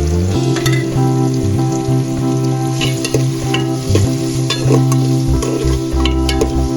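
Food frying and sizzling in a pan while a spoon stirs it, with scattered crackles and scraping clicks. Background music with held notes plays underneath.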